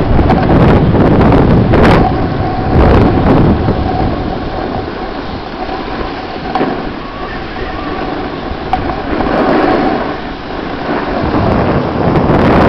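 Wind buffeting the camera microphone while moving downhill on a groomed ski run, mixed with the hiss of sliding over packed snow. Loudest at the start and again near the end, easing off in the middle.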